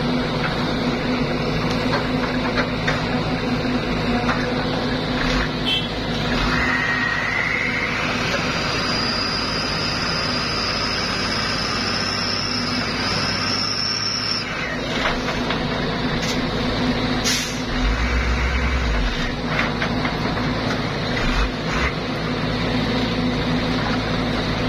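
Heavy diesel engines running hard under load: a stuck Fuso dump truck straining forward while a CAT 316 excavator pulls on it from the front with its bucket. A high whine rises about seven seconds in and holds until about fourteen seconds in, and a few short sharp hisses cut through, the loudest about seventeen seconds in.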